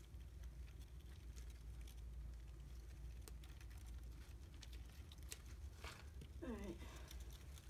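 Faint rustling and scattered light clicks from hands working at a zip-tied plastic bag, then a short falling vocal sound about six and a half seconds in.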